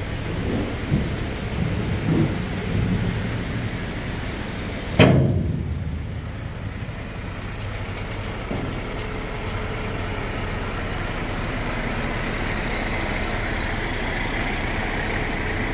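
A truck engine running steadily while the hydraulic ram tips the steel body of a Schmitz Cargobull tipper semi-trailer, with a single loud bang about five seconds in that dies away quickly.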